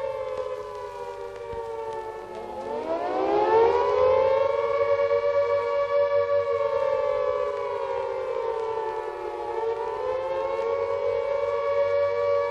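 A civil-defence-style siren wailing in a two-tone chord. The pitch falls away, winds up again about two seconds in and holds, then sags about three-quarters through and climbs back.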